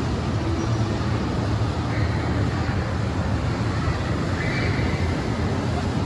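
Steady ambient hum and low rumble of a large shopping-mall hall, a constant wash of noise with no clear single source, with two faint short high tones about two and four and a half seconds in.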